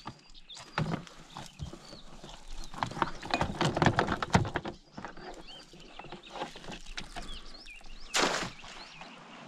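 A casting net being hauled into a boat and cleared of a tangled catch: irregular knocks and clatter, busiest in the middle, then a short rushing splash-like burst near the end.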